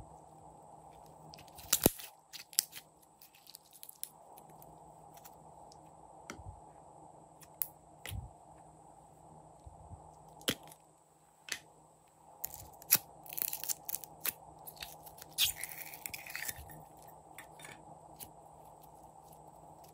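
Glossy blue glitter slime with sequins being stretched, pressed and folded by hand: sticky clicks, pops and crackles at irregular moments. A loud snap comes about two seconds in, and a denser run of crackling comes in the second half.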